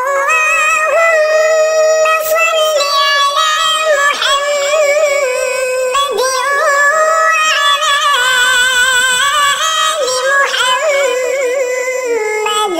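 A high voice sings an Islamic devotional chant, a darood, in long, wavering, ornamented notes; it fades out near the end.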